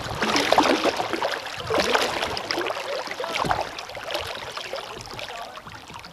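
Kayak paddle blades dipping and splashing in river water, with water burbling and gurgling around the hull; the splashing is strongest in the first few seconds and eases off toward the end.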